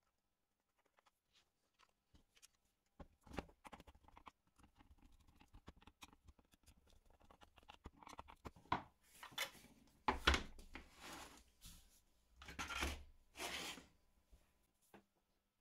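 Light clicks and knocks of hand work, then several short rasping scrapes about nine to fourteen seconds in.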